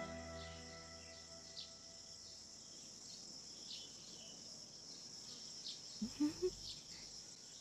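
Faint outdoor meadow ambience: a steady high chirring of crickets with a few short falling bird chirps, and three soft low blips about six seconds in.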